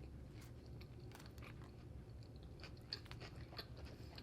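A person chewing a mouthful of hot dog close to the microphone: soft, irregular mouth smacks and clicks, thickest in the second half, over a faint low hum.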